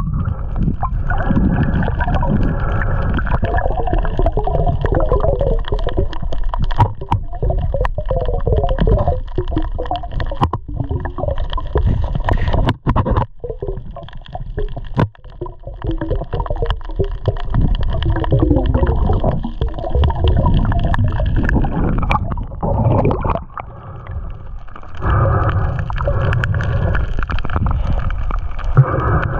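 Muffled water gurgling and sloshing with a continuous low rumble, dipping quieter twice.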